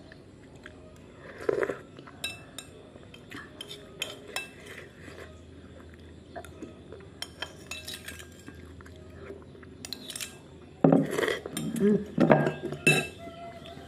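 Metal spoon clicking and scraping against a ceramic plate while soup is eaten, in scattered light clinks. About eleven seconds in, a couple of seconds of louder voice sounds without clear words.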